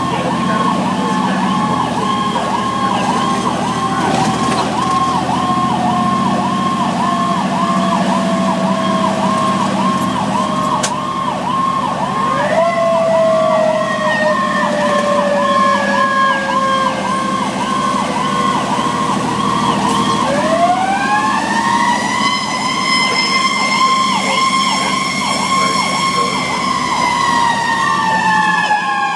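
Fire engine sirens heard from inside the cab while responding. An electronic siren cycles in a fast yelp throughout, and a mechanical siren slowly winds down, is spun back up about 20 seconds in, and starts coasting down again near the end.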